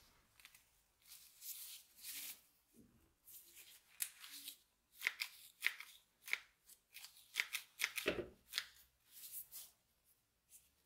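Bypass pruning shears worked open and shut by hand, the steel blades making an irregular run of sharp snipping clicks and short scraping swishes.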